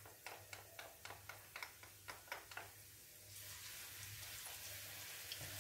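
Wooden spatula tapping and scraping chopped garlic out of a small glass bowl into a pot, a quick run of light taps, then from about three seconds in a faint steady sizzle as the garlic starts to fry in hot olive oil.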